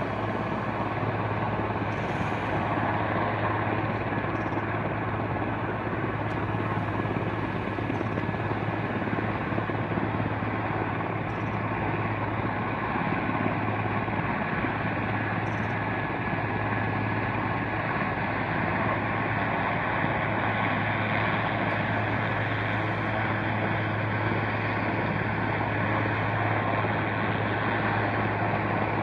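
Helicopter hovering, its rotor and engine making a steady drone with a constant low hum.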